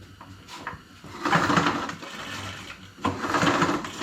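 Recoil starter cord on a small engine pulled twice, the engine whirring over on each pull without firing: it has no spark.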